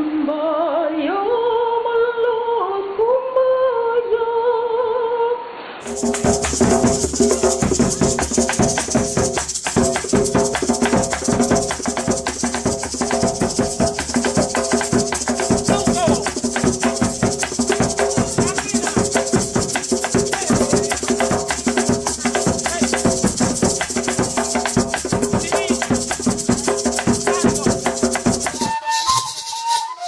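A woman singing unaccompanied for about six seconds, then an abrupt switch to Caribbean folk dance music: fast, dense percussion with shaken maracas over steady held notes. Just before the end it cuts again to a cane gaita flute playing with maraca.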